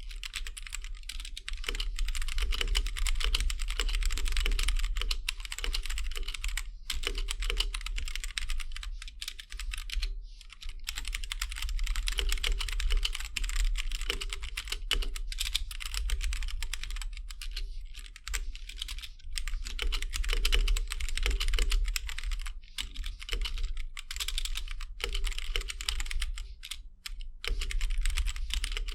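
Continuous fast typing on a Gamakay K87 mechanical keyboard with Gateron Brown tactile switches and stock keycaps, a dense run of key clicks with a few brief pauses, over a steady low hum.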